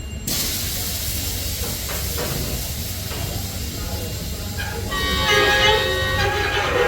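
D19Er diesel locomotive running with a freight train, a steady low engine rumble under a hiss that starts suddenly just after the beginning. About five seconds in its horn sounds for about two seconds, the loudest part.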